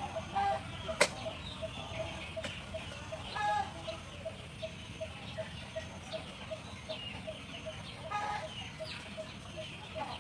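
Farmyard chickens clucking a few times over a steady short chirp repeating about three times a second, while a knife scrapes and cuts boiled pork on a wooden chopping board, with one sharp knock about a second in.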